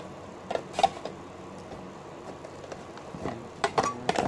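Clicks and knocks of a clear plastic action-camera display case being handled and opened, a few sharp ones about half a second in and a quick cluster near the end.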